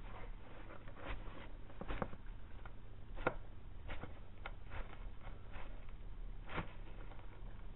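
Argentine black and white tegu eating from a plastic food bowl: about ten irregular soft clicks and crunches as it bites and chews chunks of fruit or vegetable and greens.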